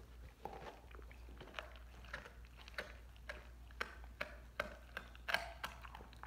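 A dog gnawing a raw lamb leg on the bone, with a run of crunching bites about two a second, the loudest about five seconds in.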